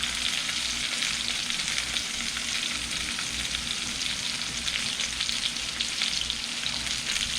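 Bacon-wrapped hot dogs, chopped onions and bell peppers frying, a steady sizzle with fine crackling pops.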